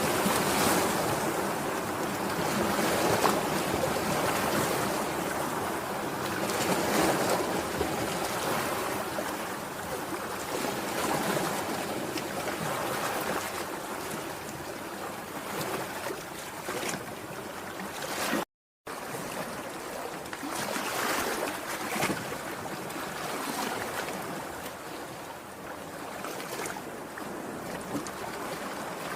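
Sea waves washing ashore, the surf noise swelling and easing every few seconds. The sound cuts out completely for a moment about two-thirds of the way through.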